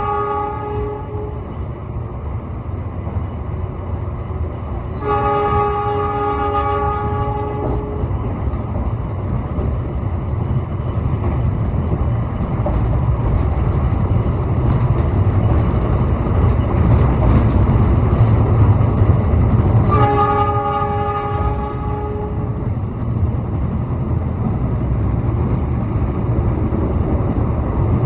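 Train horn of the Argo Bromo Anggrek sounding repeatedly. One blast ends just after the start, another lasts about three seconds from about five seconds in, and a third lasts about two and a half seconds from about twenty seconds in, all over the steady rumble of the train running on the rails.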